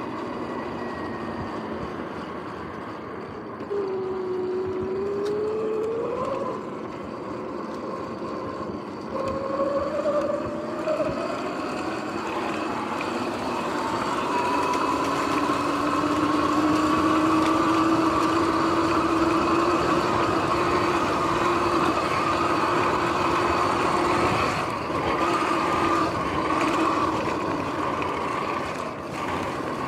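Sur-Ron X electric dirt bike riding at speed: a motor and drivetrain whine that rises and falls in pitch as it speeds up and eases off, over the rush of tyres on grass. The bike's bearings are worn and noisy.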